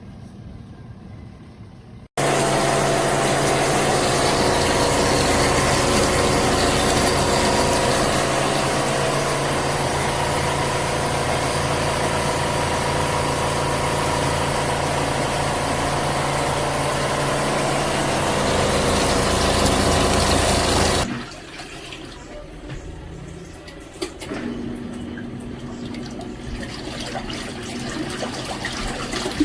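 Compact twin-tub washing machine running: a steady motor hum under loud water churning, which starts abruptly about two seconds in and cuts off suddenly about two-thirds of the way through. After that only a quieter low hum and faint handling noises remain.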